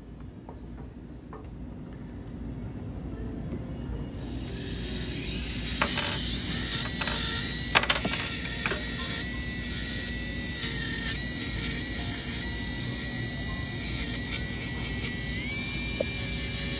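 Dental lab micromotor handpiece starting about four seconds in and running with a steady high whine as its bur grinds a 3D-printed PMMA implant provisional. A few sharp clicks come in the middle, and the whine steps up slightly in pitch near the end.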